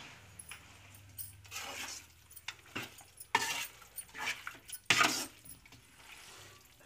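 Metal spatula scraping and knocking against a large metal kadai as raw chicken pieces are stirred and turned, in irregular strokes, the loudest about three and a half and five seconds in.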